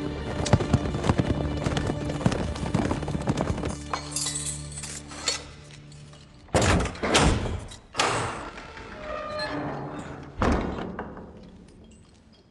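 Film soundtrack: music with sustained tones under a rapid run of knocks, then four heavy impact hits in the second half as the sound fades away near the end.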